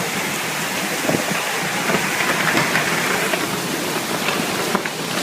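Heavy rain falling, a steady rushing noise with a few faint knocks.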